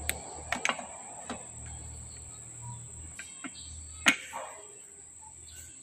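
Light metallic clicks and knocks from a diesel piston and connecting rod with its bearing cap being handled, the sharpest about four seconds in. A steady high whine runs underneath, and a low hum stops at about the same moment.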